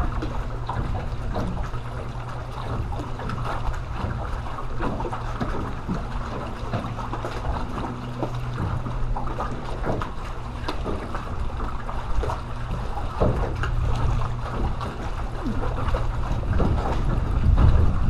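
Wind buffeting the microphone, with small waves lapping and slapping against the hull of a jon boat in scattered little splashes.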